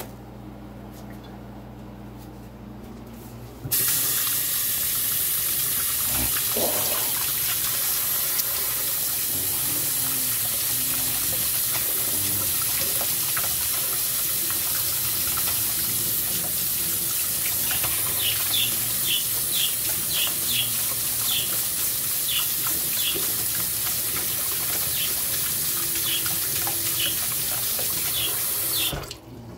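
Kitchen faucet turned on about four seconds in, water running steadily into a stainless steel sink and over a plastic slotted spatula being rinsed under it, then shut off abruptly near the end.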